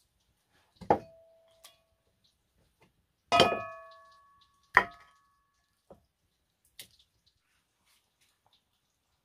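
Meat cleaver chopping meat and bone on a wooden block: three sharp blows with a brief metallic ring, about a second in, at three and a half seconds and near five seconds, the middle one the loudest with the longest ring. A couple of faint knocks follow.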